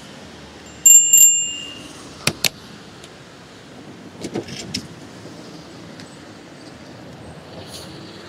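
Bicycle bell rung twice in quick succession, ringing on for about a second, followed by a couple of sharp clicks and a few light knocks from the bike over steady street noise.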